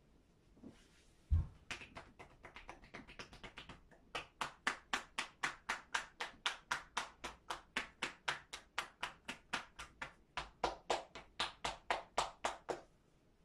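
Hands drumming on a seated person's shoulders and upper back in percussion (tapotement) massage. It starts with one low thump and a run of quick, lighter taps, then settles into an even beat of sharp strikes, about four a second.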